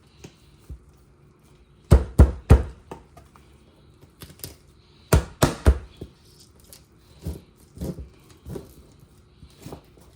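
Kitchen knife chopping through a raw quail against the counter: two quick runs of three heavy strikes, about two seconds in and again after five seconds, then lighter knocks. The knife is dull and due for sharpening.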